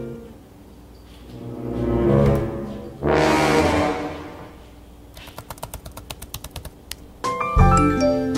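Music that swells to a loud burst about three seconds in, then a run of rapid clicks, with music starting again near the end.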